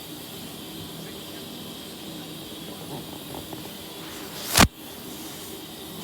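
A steady hiss. About four and a half seconds in, a short, loud rush of noise swells and then cuts off abruptly.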